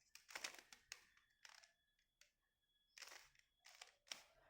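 Faint plastic clicks and scrapes from a Rubik's cube's layers being turned by hand, about seven short turns at an uneven pace.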